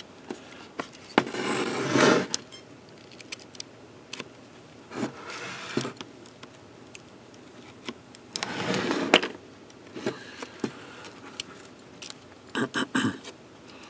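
Handling noise from a laptop logic board being worked loose and lifted from its aluminium case: scattered clicks and taps, three longer scraping, rustling stretches, and a quick run of clicks near the end.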